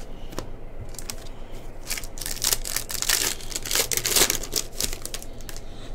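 Foil wrapper of a Bowman Baseball trading-card pack crinkling and tearing as it is ripped open, a dense crackle from about two seconds in until about five seconds in. Before it, a few light clicks of cards being stacked.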